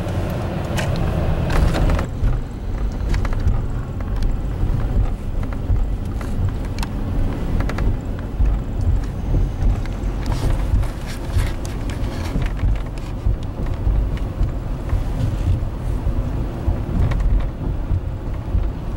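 Steady low rumble of a vehicle's engine and tyres, heard from inside the cab while driving at low speed.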